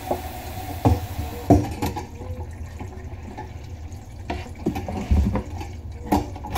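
Water running down a bathroom vanity sink's pop-up drain, with several short clicks and knocks as the pop-up rod and its linkage are worked.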